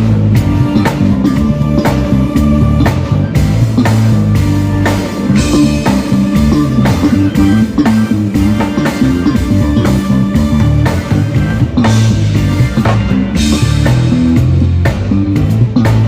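Band playing live, with an electric bass carrying strong, changing low notes over a drum kit keeping a steady beat.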